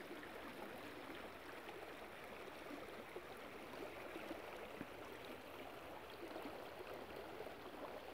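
Shallow stream running over stones, logs and branches: a steady rippling of water.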